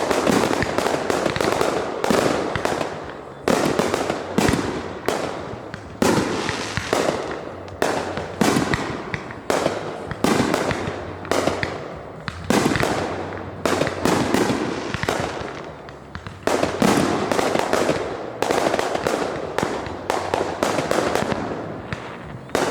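Fireworks going off in a continuous barrage: a rapid run of sharp bangs, often several a second, each trailing off.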